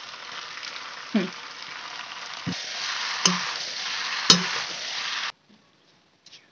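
Pasta sizzling in hot oil in a metal kadhai as sauce is poured in and stirred with a spatula, which knocks sharply against the pan four times. The sizzling gets louder about halfway and cuts off abruptly near the end.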